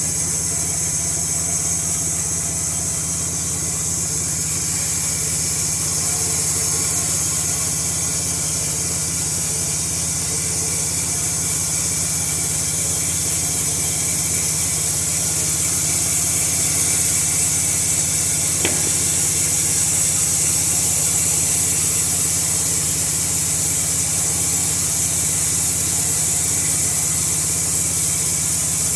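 Norwood LumberMate LM2000 band sawmill's engine running steadily, with a constant high hiss over the engine hum.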